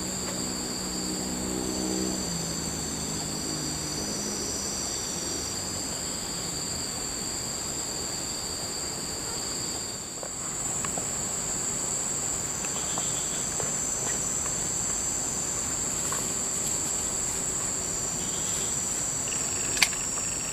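Insects trilling steadily in two high-pitched bands. In the first few seconds a low, held, humming note steps down in pitch, and a single sharp click comes near the end.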